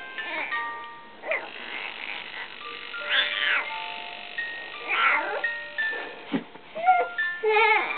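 A one-month-old baby's short fussing cries: a few high, wavering wails a second or two apart, the last one near the end. Under them runs a soft melody of single held notes.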